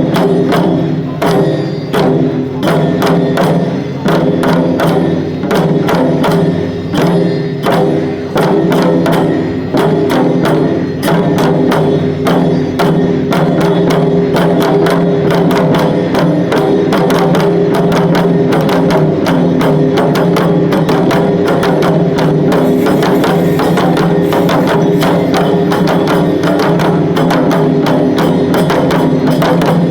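Taiko drum and percussion music for a Sanuki shishimai lion dance. The strokes are separate at first, then quicken from about ten seconds in into a fast, dense beat.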